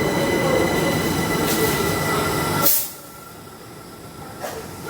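Passenger train moving through the station: a loud rumble with steady high-pitched tones over it. About three seconds in there is a brief sharp crack and the noise drops off abruptly to a much quieter hum.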